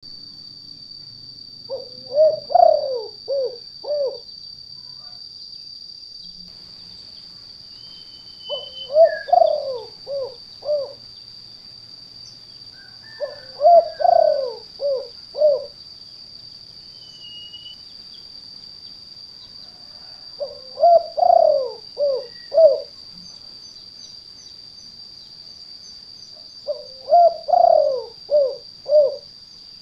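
Spotted dove (tekukur) cooing in the 'kuk 2' song type used as a lure call: five phrases about six seconds apart, each a rolling coo followed by three or four short notes. A steady high-pitched whine runs beneath.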